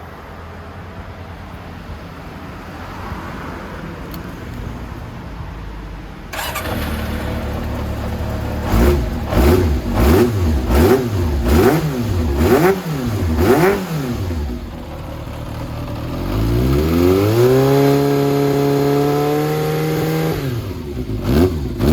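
Yamaha XJR400R's air-cooled inline-four engine through an aftermarket titanium exhaust and silencer. It runs at idle, then is revved in a quick series of about six throttle blips. It is then held at raised revs for about three seconds before dropping back, with more blips near the end.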